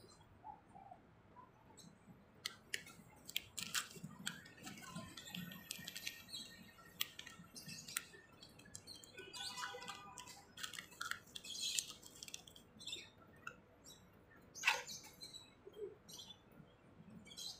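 Faint crinkling and clicking of a small plastic packet being handled, in many short irregular crackles, with a brief pitched chirp about nine seconds in.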